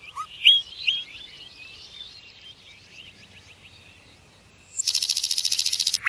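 Common nightingale singing: a series of quick whistled notes that fades away, then, near the end, a loud, very fast rattling trill of repeated notes.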